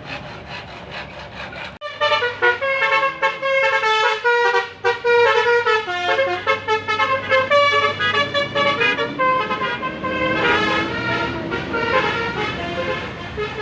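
A bus's telolet (basuri) musical air horn playing a quick melody of many short notes, starting about two seconds in after a low rumble.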